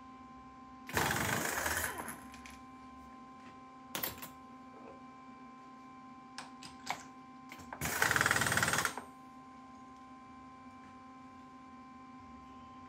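Two brief rattling mechanical bursts of about a second each, one near the start and one about two-thirds through, with a few short clicks and knocks between, over a steady hum, as the tap holder is removed from a milling machine spindle and a drill chuck fitted.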